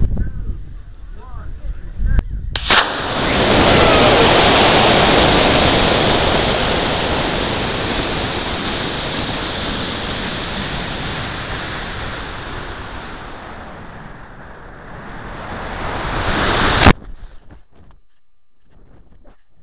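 High-power rocket on a Cesaroni H87 IMAX motor, heard from a camera riding on the rocket: a sharp crack about three seconds in as the motor lights, then a loud rush of motor thrust and air that slowly fades through the climb. Near the end a second sharp pop comes as the ejection charge fires, followed by faint wind.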